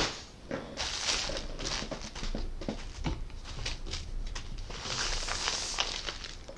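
Nylon camping gear rustling and crinkling as it is handled, with small clicks and two louder swishing stretches, about a second in and again near the end.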